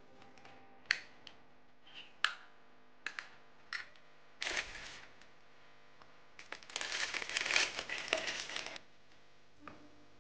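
Small cosmetic tins and jars being set down with several sharp clicks and taps, then a plastic bag crinkling and rustling for about two seconds.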